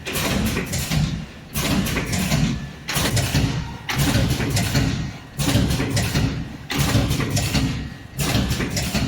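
GR320-2 two-lane packaging machine for granular products running, a rhythmic mechanical cycle that repeats about every 1.3 seconds, each cycle starting abruptly.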